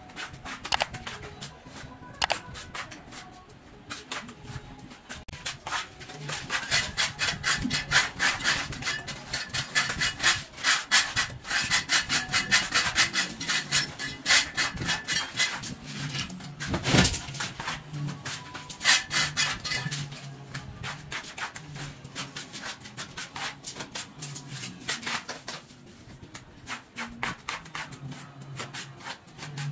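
A hand plastering tool scraping and rubbing back and forth over sand-and-cement render in quick, repeated strokes, busiest through the middle stretch, with one sharp knock about halfway through. Background music plays underneath.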